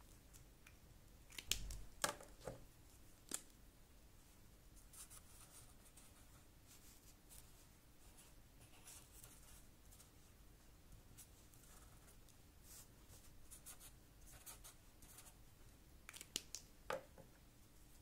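Felt-tip marker pens being handled: a few sharp clicks and taps early on and again near the end as pens are uncapped, capped and set down on the table. In between, faint scratching of a marker drawing on paper.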